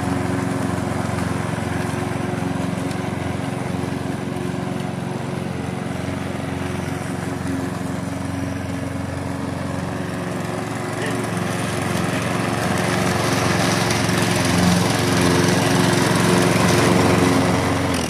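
Katana self-propelled petrol walk-behind lawn mower running steadily while cutting grass, growing somewhat louder in the second half.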